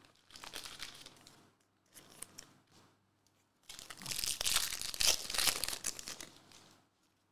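A 2022-23 NBA Hoops trading card pack wrapper being torn open and crinkled by hand. Light rustling at first, then a louder stretch of tearing and crinkling from about halfway through that dies away near the end.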